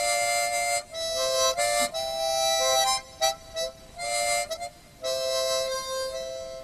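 Background music: a harmonica playing a tune in held two-note chords, in short phrases with brief gaps, fading out near the end.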